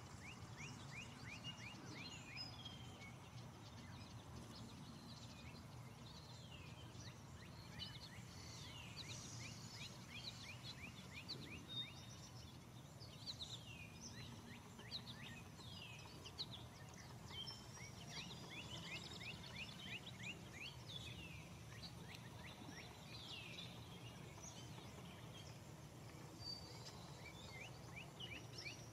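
Faint outdoor ambience of several birds singing and calling, with quick rattling trills and short sweeping chirps scattered throughout, over a steady low rumble.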